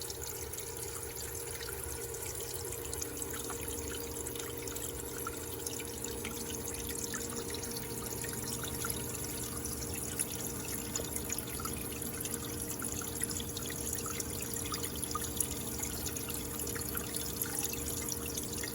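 Electrolyte fizzing and crackling steadily as gas bubbles form at the electrode during electrochemical machining of a tungsten carbide blank. A steady electrical hum runs underneath.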